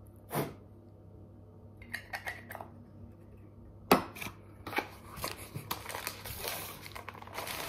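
Small clicks and taps of objects handled on a table, then from about five seconds in, continuous crinkling and rustling as a small packet is unwrapped by hand.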